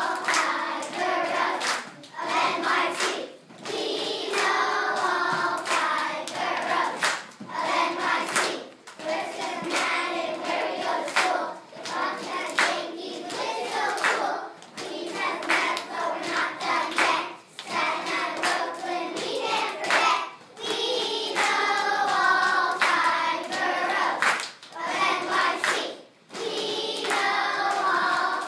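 Children's choir singing a song together, with sharp hand claps falling between and over the phrases.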